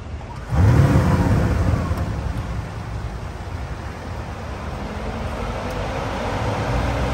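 2021 Audi RS6 Avant's twin-turbo V8 starting up: it fires about half a second in with a loud flare, then settles into a steady, burbling idle.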